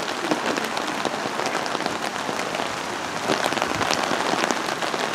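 Steady rain falling, with many single drops ticking close to the microphone.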